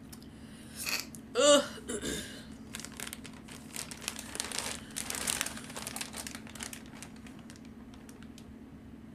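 Packaging being handled, with crinkling and rustling from about three seconds in that thins out near the end. Before it, about a second and a half in, comes a short vocal sound from the woman, the loudest moment.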